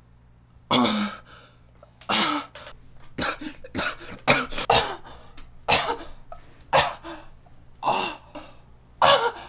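A man coughing and gagging in harsh fits, about a dozen sharp coughs spaced half a second to a second apart, some with a strained, choking edge.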